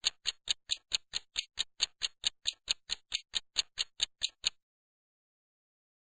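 Quiz countdown timer ticking sound effect: short, sharp clock ticks at about four to five a second, stopping about four and a half seconds in as the countdown runs out.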